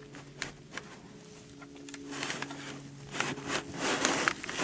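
A beagle rooting among feed sacks and hay: scattered light rustles and scratches, turning into denser, louder rustling from about halfway through.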